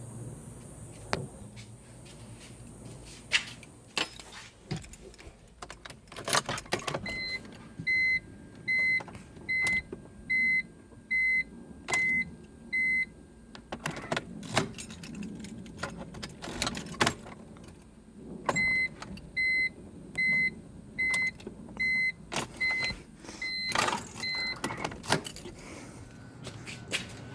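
Keys clicking and jangling at a 2006 BMW 325Ci (E46) that will not start, with the car's electronic warning chime beeping in two runs, a little more than once a second. No engine is heard running.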